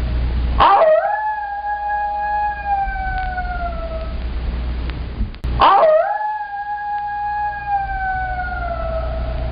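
Coyote howling: two long howls about five seconds apart, each rising sharply and then sliding slowly down in pitch over several seconds. A low steady rumble runs underneath between the howls.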